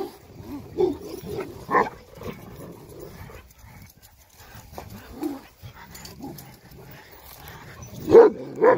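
Dogs barking in short, separate bursts, with two loud barks close together near the end.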